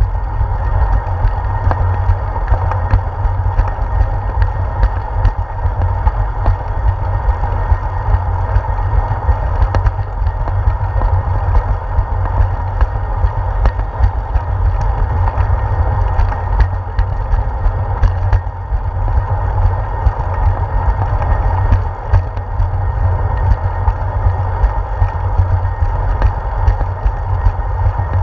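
Bicycle rolling along a concrete path, heard through a handlebar-mounted GoPro in its housing: a steady low rumble with frequent clicks and rattles from bumps in the pavement.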